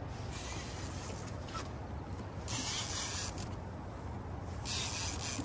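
Wind on the microphone aboard a boat on the water: a steady low rumble with two or three short bursts of hiss.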